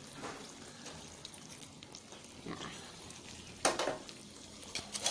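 Chicken pieces going into a pan of frying massaman curry paste and coconut cream: a low sizzle with a few short louder hisses, the loudest about three and a half seconds in.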